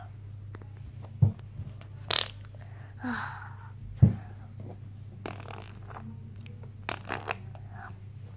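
Phone being handled, with sharp bumps about a second in and again at about four seconds as it knocks into a plush teddy bear, over a steady low hum, with a couple of short breathy puffs and some light clicks in between.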